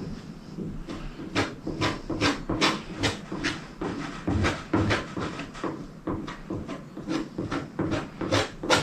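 Repeated short scraping strokes, about two to three a second, of a spreader working freshly mixed body filler onto a car hood.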